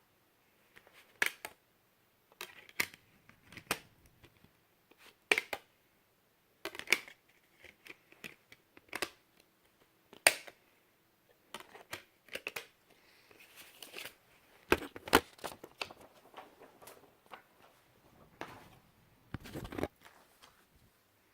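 Handling a CD and its plastic case and packaging: irregular sharp clicks and taps with soft rustling between them.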